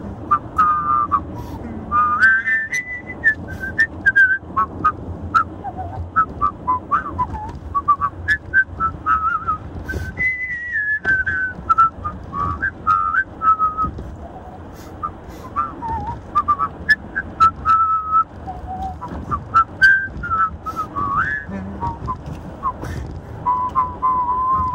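A man whistling a melody, the notes gliding and stepping between phrases with short breaks, over the steady low road and engine rumble inside a moving car. Short sharp clicks are scattered through.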